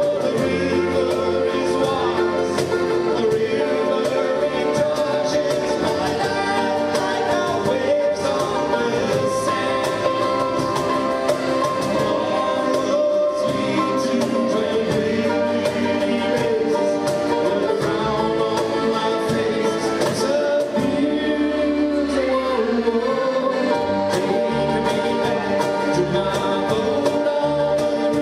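Live acoustic band playing a song with singing: accordion, mandolin and acoustic guitar over a steady cajón beat.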